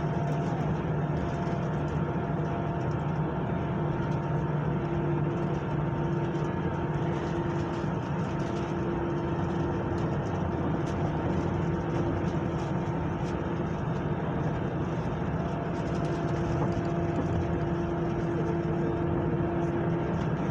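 Steady drone inside an airliner cabin, with several constant humming tones and an even level throughout.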